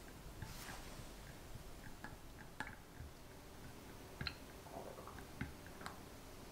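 Silicone spatula stirring orange juice in a glass measuring jug: soft liquid swishing with scattered light clicks of the spatula against the glass.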